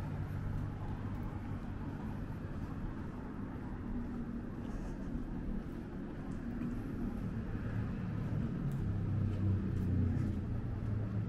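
City street ambience: a steady low rumble of traffic that swells louder about eight seconds in, with a few faint ticks.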